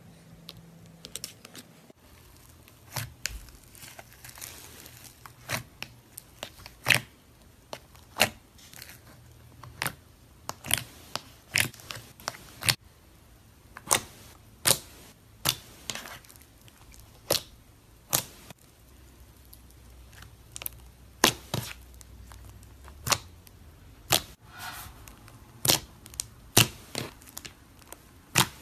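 Slime being squeezed and stretched by hand, giving sharp popping clicks from trapped air, irregularly about once a second, with fainter crackles between.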